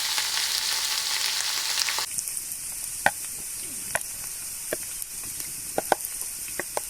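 Omelette frying in a pan over an open fire, sizzling with a dense hiss. About two seconds in, the hiss drops abruptly to a thinner one, and a few sharp clicks and pops follow.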